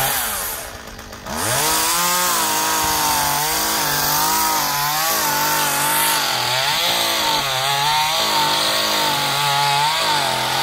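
Chainsaw revs briefly and drops back, then from about a second in runs at full throttle while cutting through a honey locust limb, its pitch sagging and recovering several times as the chain bites into the wood.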